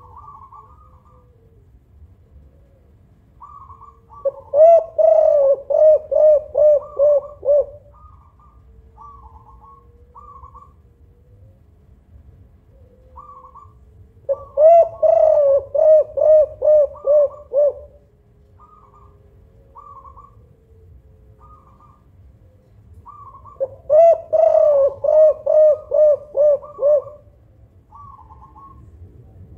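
Spotted dove (tekukur) cooing: three bouts about ten seconds apart, each a quick run of about eight low coos. It is a loud-voiced song of the kind kept as a lure to set other doves calling. Fainter, higher short chirps come between the bouts.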